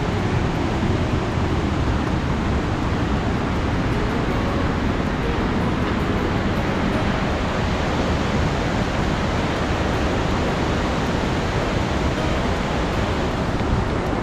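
Loud, steady rush of a rocky mountain stream cascading over boulders.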